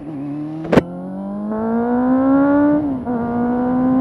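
Honda CB400 inline-four motorcycle engine, through Ixil aftermarket silencers, accelerating hard. Its pitch rises steadily for about two and a half seconds, drops at an upshift near three seconds, then holds steady. A sharp click under a second in is the loudest single sound.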